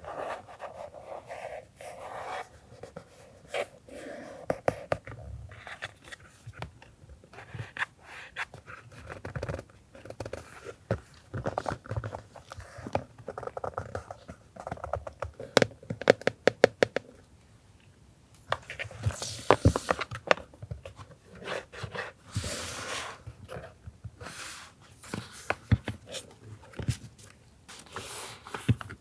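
Paper and stationery being handled by hand: rustling, scraping and crinkling with light taps, a quick run of sharp clicks about halfway through, and two louder spells of rustling later on.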